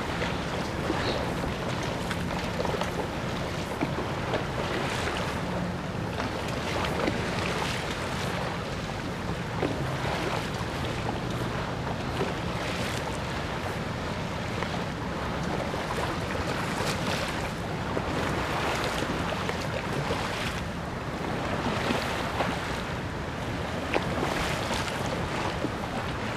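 Wind buffeting the microphone over the wash of river water lapping across a flooded walkway, with a faint low hum under it for about the first half.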